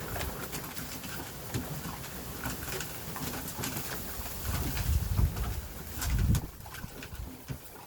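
A litter of puppies eating dry kibble off a shared pan: a steady run of small crunches, licks and clicks, with two heavier low bumps about five and six seconds in.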